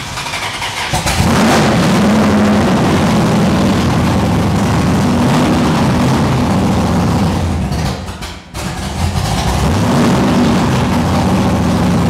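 Chrysler 440 big-block V8 with dual four-barrel carburetors, run loud and blipped by hand at the throttle linkage, its revs rising and falling. About eight and a half seconds in it drops away briefly, then picks up again. This is a first run after the engine sat in storage since 1995; it is noisy.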